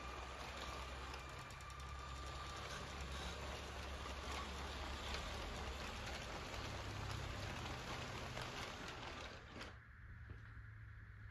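Lego toy train rolling past on plastic Lego track: a steady rattle of small plastic wheels with quick faint ticks. It drops away abruptly about ten seconds in as the last cars go by.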